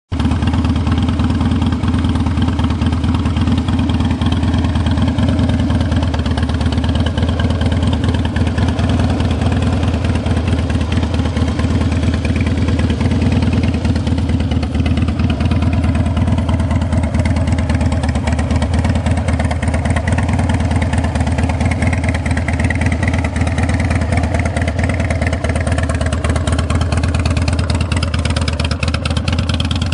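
2006 Harley-Davidson Dyna Super Glide's Twin Cam 88 V-twin idling steadily through aftermarket Vance & Hines mufflers.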